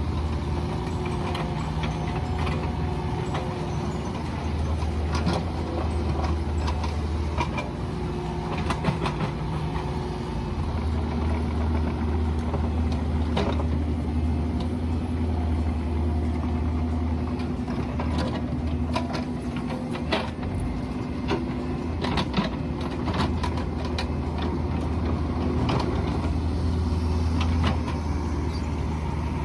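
Mini excavator's engine running steadily, its pitch stepping up and down as the hydraulics take load, with scattered knocks and scrapes from the digging.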